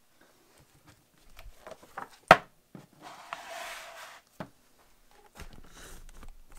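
Large hardcover atlas handled on a wooden table: several light knocks and one sharp knock a little over two seconds in as the book is opened, then two stretches of paper pages rustling as they are turned.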